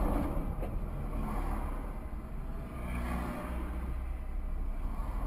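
Car driving, heard from inside the cabin on a dashcam: steady low engine and road rumble.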